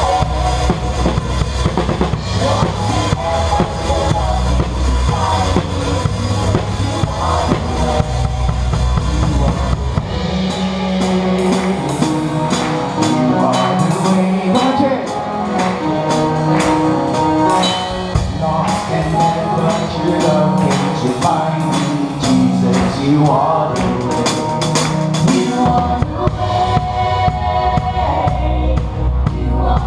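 Drum kit played live with a band, voices singing along. About a third of the way in the deep bass drops away, leaving sustained chords and frequent sharp cymbal strokes. The full low end comes back near the end.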